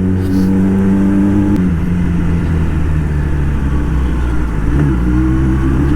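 Kawasaki ZX10R inline-four engine running while riding, its note holding steady, easing down about a second and a half in and rising again near the end, over road and wind noise.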